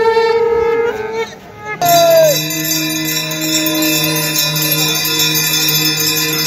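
A long, steady horn-like tone that stops about a second in. Then, after a sudden change, several steady ringing tones like bells sound together, one of them sliding down in pitch.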